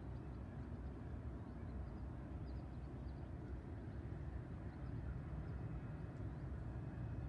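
Steady low rumble of outdoor background noise, with a few faint, brief high chirps.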